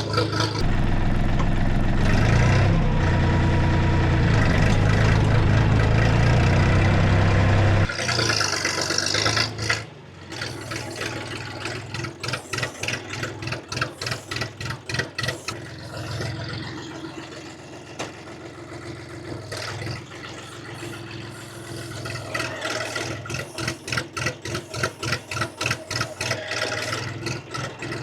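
UHI 254 25 hp tractor engine running, loud and steady for the first eight seconds or so. It drops quieter at about ten seconds and carries on with a regular pulsing, about two to three beats a second.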